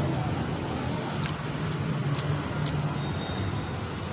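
Steady rumble of road traffic with a low engine hum, and a few light clicks about a second or two in.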